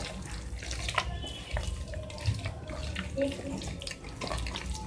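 Hand squishing and kneading wet minced chicken with a raw egg in a steel bowl: irregular wet squelching with small clicks.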